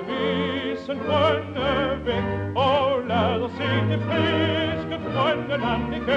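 Music: singing in an operatic style with a strong, wide vibrato over sustained low accompaniment.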